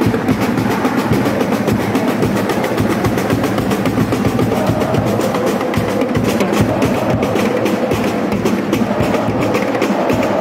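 A school supporter section singing a chant together over a quick, steady drumbeat.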